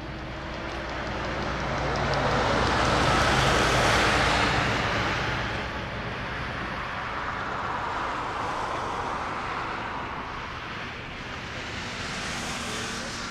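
Airbus A330-300's Rolls-Royce Trent 700 jet engines roaring at takeoff thrust as the airliner climbs away. The roar swells to its loudest about four seconds in, then fades, with a smaller swell near the end.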